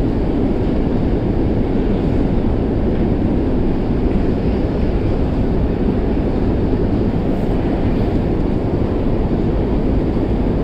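Metro escalator running: a steady low rumble and hum that holds even throughout.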